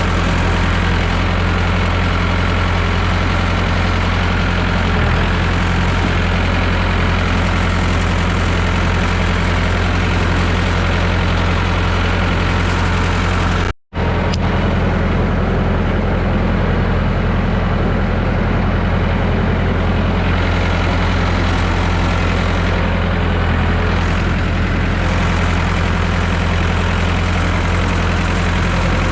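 Engine of a 1969 Massey Ferguson 3165 backhoe tractor running steadily at an even speed, with a momentary break in the sound about fourteen seconds in.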